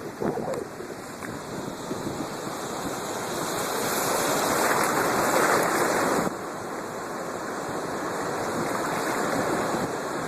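Storm waves surging and breaking on the Black Sea, with wind on the microphone. The rush of water swells to its loudest about four to six seconds in, then drops suddenly to a lower steady surf.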